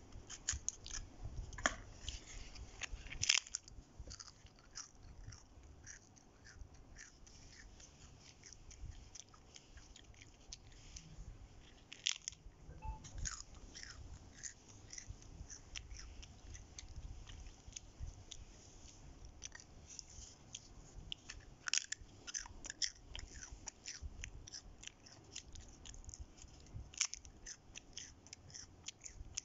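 A child biting and chewing crunchy Terengganu fish crackers (keropok ikan) close to the microphone: a run of small crisp crunches throughout, with louder bites about 3, 12, 22 and 27 seconds in.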